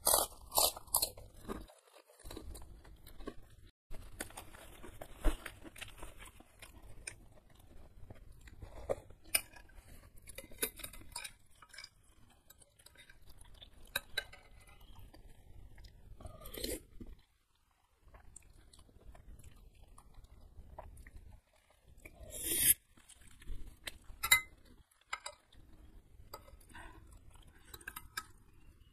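Close-miked chewing and crunching of a puffed kerupuk cracker, loudest in the first second, followed by wet chewing with scattered sharp clinks of a spoon and fork against the bowl.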